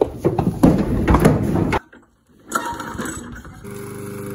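Heifer clattering through a wooden loading chute, hooves and body knocking on the boards, for about two seconds. After a short silence a small mower engine comes in about three and a half seconds in and runs steadily.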